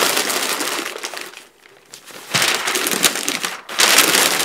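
Sheets of newsprint offcut paper crinkling and rustling as they are crumpled and wrapped by hand, pausing briefly about a second and a half in, then starting up again.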